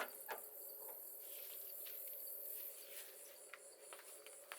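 Insects chirping in a steady, high, pulsing chorus, with a few light clicks near the start and fainter ones later.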